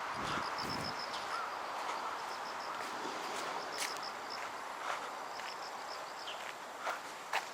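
Insects chirping in runs of rapid, high, evenly spaced pulses that start and stop several times, over a steady outdoor hiss. A few footsteps are heard near the end.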